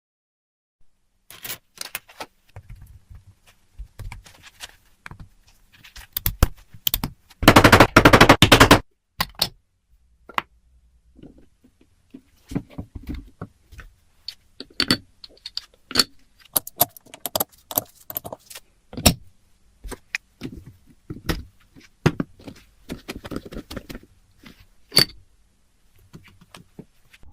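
Irregular clicks, taps and clinks of small metal parts being handled and worked on, with light scraping. A louder, rushing burst lasting about a second comes about eight seconds in.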